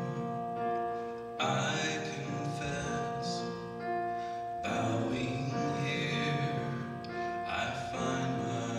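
Slow music with long held notes; a new phrase begins about every three seconds.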